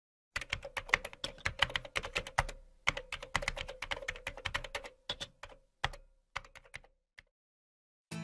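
Computer keyboard typing: rapid, irregular key clicks that stop about a second before the end. Music comes in right at the end.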